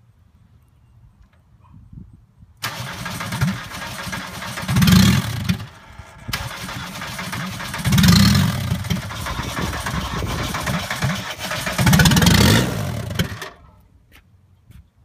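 The starter cranks the 1985 VW Golf's four-cylinder diesel engine in two attempts: a short one of about three seconds, then after a brief pause a longer one of about seven seconds. The engine does not catch, the typical sound of this diesel's no-start problem.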